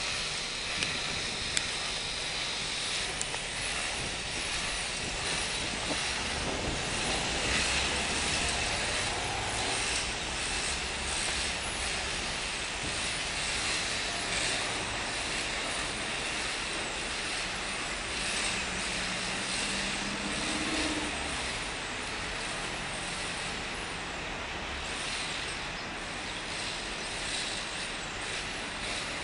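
Steady street traffic noise, with a low rumble of motor vehicles underneath.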